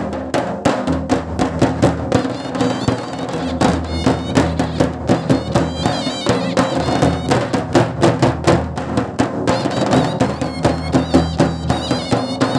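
Nagara drums beaten with curved sticks in a fast, steady rhythm, with a shehnai playing a wavering melody over the drumming from about two seconds in.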